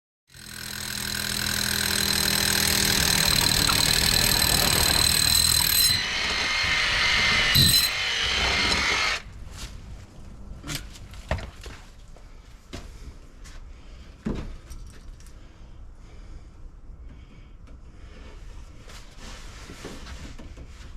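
A power tool's motor runs steadily with a high whine for about nine seconds, changes in tone in the last few seconds, then stops suddenly. Scattered light clicks and knocks follow.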